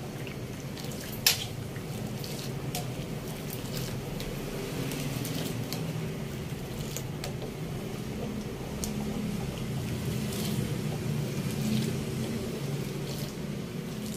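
Metal spoon stirring coconut milk in an aluminium wok: the liquid swishes, and the spoon clicks and scrapes against the pan now and then, with one sharp clink about a second in. A steady low hum runs underneath.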